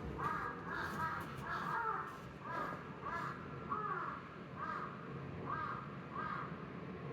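A recording of an animal's calls played back: a series of about nine short, arched calls at an even pace, roughly one every 0.7 seconds.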